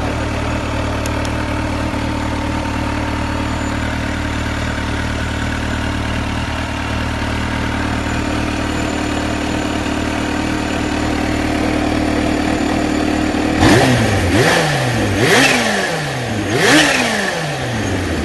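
Kawasaki Ninja H2's supercharged inline-four idling steadily in neutral, then revved three times near the end, about a second and a half apart. Each rev rises sharply in pitch and falls back.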